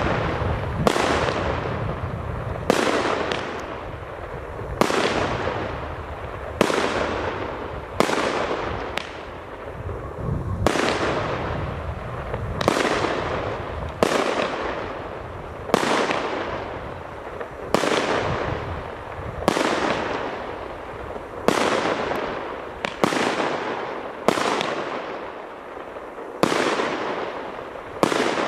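1.2-inch, 36-shot fireworks cake firing shot after shot, roughly one every two seconds. Each is a sharp bang followed by a rush of noise that fades over about a second.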